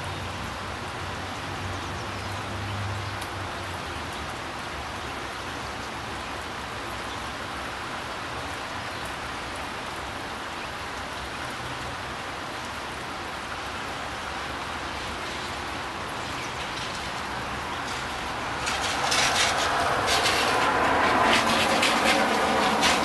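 Steady rain falling, an even hiss. Near the end a louder rush with crackling sets in and holds.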